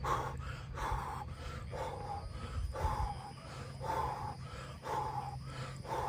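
A man breathing hard from exertion, a sharp huff about once a second in a steady rhythm, during medicine ball core twists.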